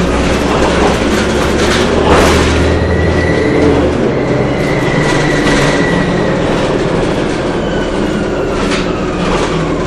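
Inside a 2007 Orion VII diesel-electric hybrid bus under way: the electric drive whines, a high tone that rises, holds steady mid-way and then slides down, over the low drone of the drivetrain. Sharp knocks and rattles of the bus body come through, the loudest about two seconds in.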